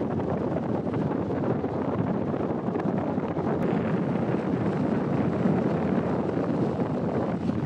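Steady rush of wind buffeting the microphone at the bow of a moving river taxi boat, over the boat's running noise and water.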